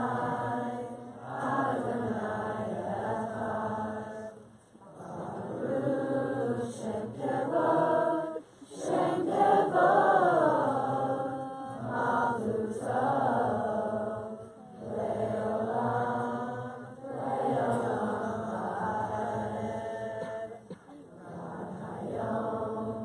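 A large crowd singing a Havdalah song together in unison, in sung phrases of a few seconds with short breaks between them.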